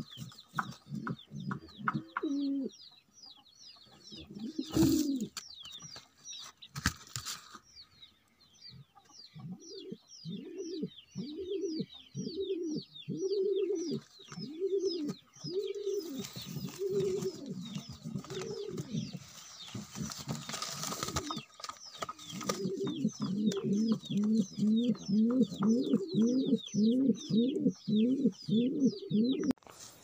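Domestic pigeons cooing, a run of low repeated coos about two a second, over a steady stream of rapid thin high chirping from other birds. Two short knocks come a few seconds in.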